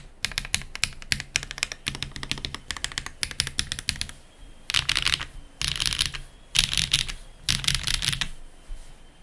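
Mechanical keyboard with stock Hyacinth V2U switches on a top-mounted aluminium plate in a polycarbonate case, with GMK keycaps, being typed on. About four seconds of steady typing, then four short fast flurries of keystrokes about a second apart, stopping shortly before the end.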